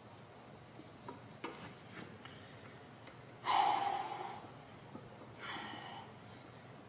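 A man's forceful breaths, a strong one about three and a half seconds in and a weaker one about two seconds later, after a few faint clicks: a lifter's bracing breaths while set up over a loaded barbell before a deadlift.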